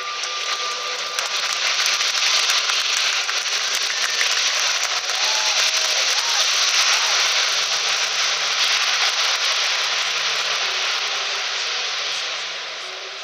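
Loud, steady jet roar from the Airbus A380's four turbofan engines as the airliner rolls along the wet runway. It builds over the first couple of seconds and begins to fade near the end.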